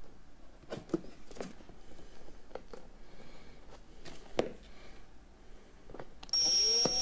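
Scattered light taps and knocks of handling work pieces, then near the end a cordless drill starts suddenly with a high whine, driving a wood screw through the plywood into the batten strip.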